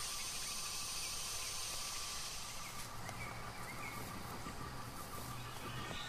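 Open-air ambience: a steady high insect drone that thins after about two seconds, with a few short bird chirps from about halfway through.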